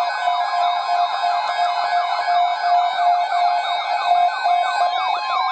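Weather-radio alert alarms sounding for a Severe Thunderstorm Watch: overlapping electronic siren-like warbles, fast repeating pitch sweeps over steady tones, ahead of the voice message.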